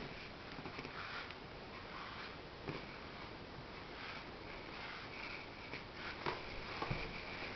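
A cat sniffing in short, soft puffs close to the microphone, with light rustling and a few sharp knocks from handling.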